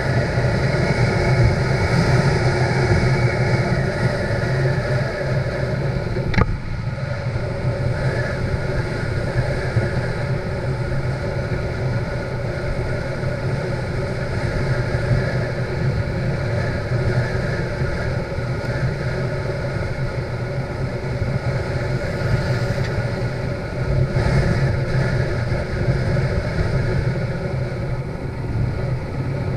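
Motorcycle engine running steadily at road speed, as heard by the rider. A sharp click comes about six seconds in, and the engine note briefly drops off after it.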